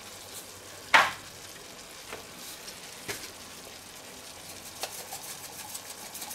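Mushroom sauce simmering in a frying pan, a faint steady sizzle with a few small pops, and one sharp knock about a second in.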